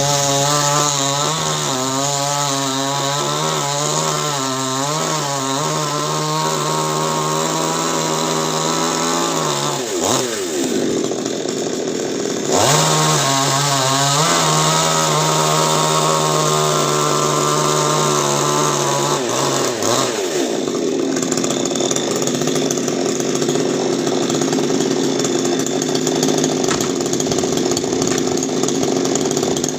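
Chainsaw running hard, its engine pitch wavering, then falling away about ten seconds in, picking up again shortly after, and falling away once more near twenty seconds.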